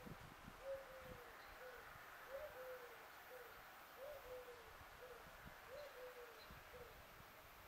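A dove cooing faintly in a repeated three-note phrase (short, long falling, short), sung about four times.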